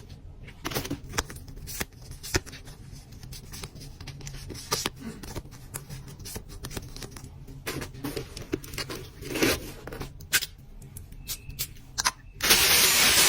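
Small items and packaging being handled: scattered light clicks and short rustles, then about twelve seconds in a loud, steady rubbing noise starts.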